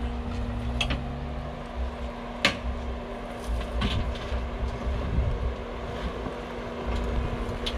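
Jeep Wrangler's engine running at low revs as it crawls over rock, rising in pitch briefly in the first second or two, with a steady low rumble and a few sharp clicks.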